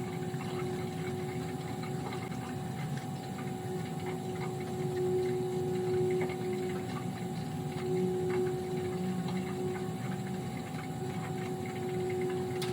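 Steady hum of boiler-room equipment: one constant tone over a low rumble, with a few faint ticks.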